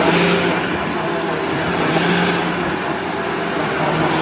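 Vacuum cleaner running steadily on a rug, its motor hum constant and its hiss swelling about every two seconds, as with back-and-forth strokes.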